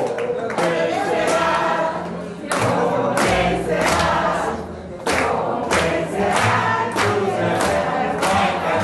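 A roomful of people singing together and clapping their hands in time, the claps sharp and evenly spaced.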